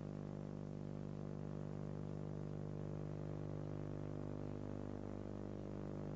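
Steady low electrical hum and buzz, a stack of even overtones over faint tape hiss, unchanging throughout: mains hum picked up in an old VHS recording.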